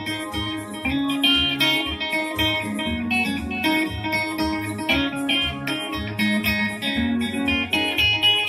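Electric guitar playing quick, bright picked soukous-style melody lines together with an electric keyboard, over a steady beat.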